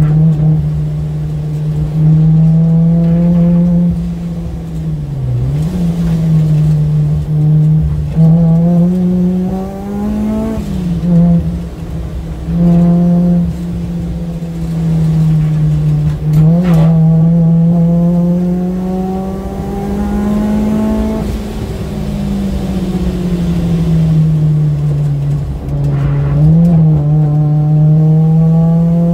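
Honda Civic Type R's four-cylinder engine heard from inside the cabin at track speed, its pitch climbing as it pulls and dropping away as it brakes and changes gear, several times.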